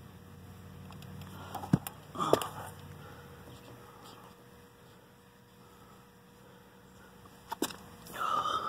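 Handling noise: a few sharp clicks and knocks as a phone is moved around under an outdoor heat-pump unit, over a faint steady hum.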